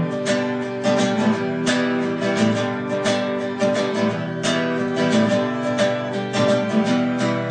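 Background music: acoustic guitar strumming chords at a lively pace.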